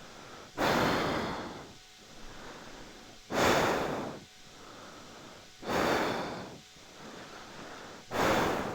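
A person breathing close to the microphone: four loud, rushing exhales about two and a half seconds apart, each fading out, with quieter inhales between them.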